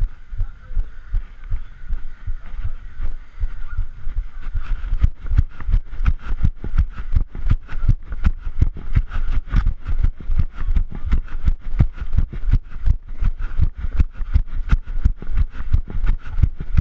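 Running footsteps, a steady rhythm of about three thuds a second, jolting a body-worn camera. The strides turn into sharper knocks about five seconds in.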